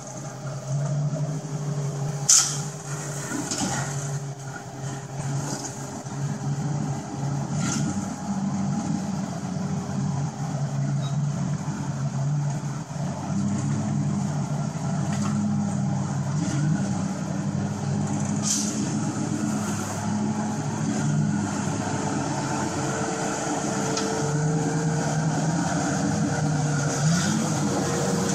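Modified 4x4's engine running at low revs while the vehicle crawls over boulders, the revs rising and falling gently with the throttle. A few sharp knocks come through, the loudest about two seconds in.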